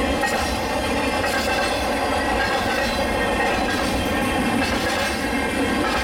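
CN freight train's tank cars and intermodal container cars rolling past, a steady rumble and rattle of steel wheels on rail with a faint high-pitched ringing held over it.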